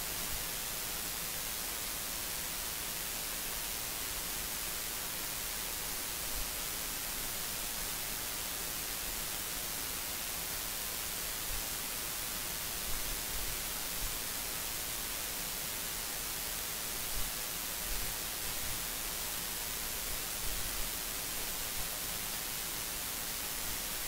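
Steady hiss of recording noise, brightest in the high range, with a few faint clicks in the second half.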